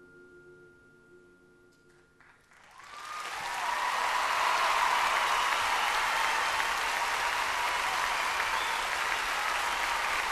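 The last held notes of the music ring on faintly and fade away. About three seconds in, a theatre audience breaks into applause, which swells quickly and carries on steadily.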